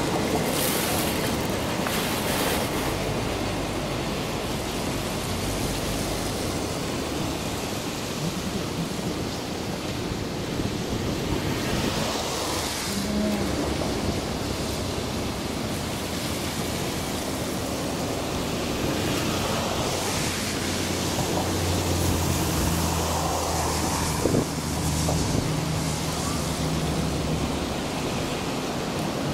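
Steady rushing wind noise on the microphone over the rumble of a long container freight train running past. About two-thirds of the way through, a low steady hum comes in for several seconds.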